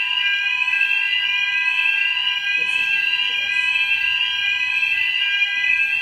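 Building fire alarm sounder going off very loud: a shrill electronic tone that sweeps upward over and over, above steady higher tones.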